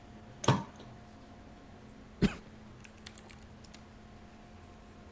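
Two short, loud bursts about two seconds apart, then a few light clicks at a computer keyboard over a faint steady hum.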